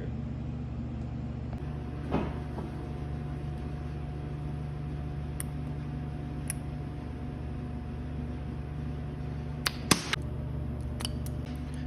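A few small metallic clicks and taps from fitting a ring over the spring-loaded plungers of a BMW S54 Vanos oil drive gear, over a steady low hum. One click comes about two seconds in; the loudest, a quick pair, comes near the end.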